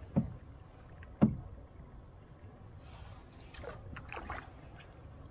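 Solo paddling in an Old Town Pack canoe: two short low thumps about a second apart as the paddle strokes knock and catch, then water swishing and dripping off the paddle blade midway.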